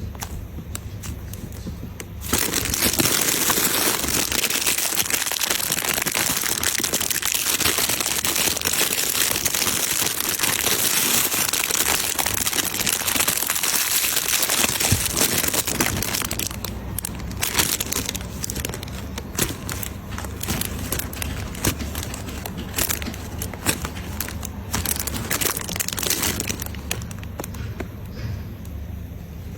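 Slime being squeezed and worked, giving a dense crinkling and crackling. About halfway through the sound thins into scattered pops and clicks.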